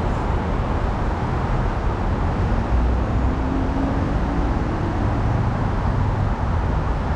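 Steady low rumble of city traffic and idling vehicles beneath an elevated highway, with a faint engine hum rising slightly about three seconds in.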